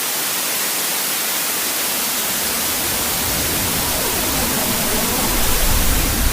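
Loud, steady hiss of static-like noise spread evenly across the whole range, with a low rumble filling in underneath from about two seconds in.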